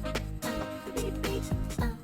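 Music with a steady beat, a bass line and sustained pitched notes.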